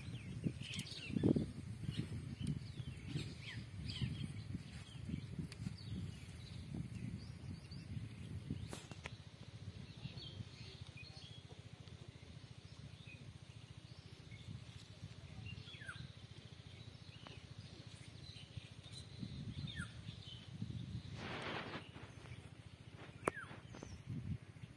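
Outdoor rural ambience: scattered short bird chirps over a low, uneven rumble with soft thumps, and a brief rustle late on.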